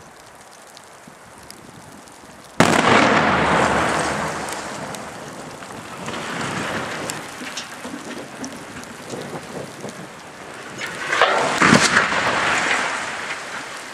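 Explosive demolition of a 60 m reinforced-concrete chimney: a sudden loud blast about two and a half seconds in that dies away over several seconds, then near the end a second loud crash with sharp cracks as the falling chimney hits the ground.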